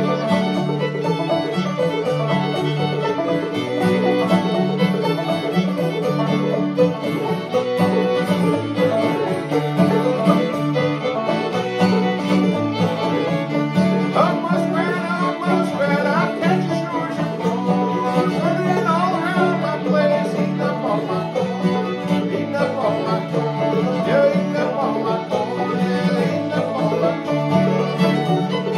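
Fiddle, banjo and acoustic guitar playing an old-time string-band tune together, the guitar and banjo keeping a steady rhythm under the fiddle melody.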